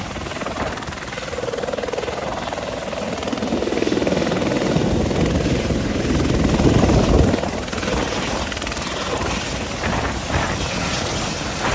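Airbus H130 helicopter descending and landing on a helipad: steady rotor and turbine noise that grows louder as it comes down, peaks about seven seconds in, then eases a little as it settles onto the pad.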